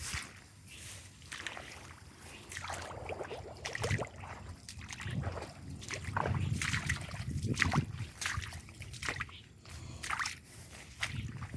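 Footsteps sloshing through water and wet ground, an irregular run of splashy steps.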